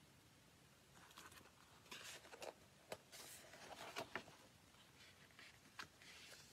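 Paper page of a picture book being turned by hand: faint rustling with a few soft clicks of handling.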